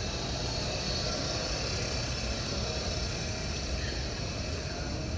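Steady ambient noise of a busy airport terminal concourse: a low, even rumble under a continuous hiss, with no single sound standing out.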